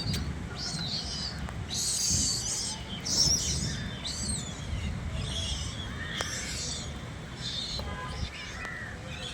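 Birds calling over and over in short, high chirps and whistles that slide in pitch, about one a second, over a steady low rumble.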